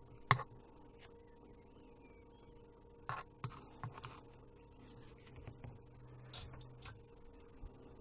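Small hand tools being handled on a workbench: a sharp click just after the start, then a scatter of short clicks and light scrapes, over a faint steady electrical hum.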